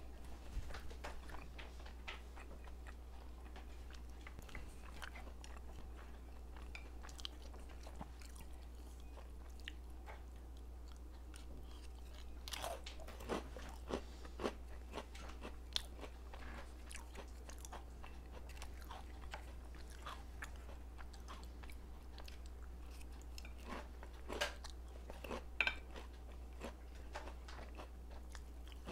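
A person chewing and biting food close to the microphone, with a few sharp clicks and taps, grouped about halfway through and again near the end, over a faint low steady hum.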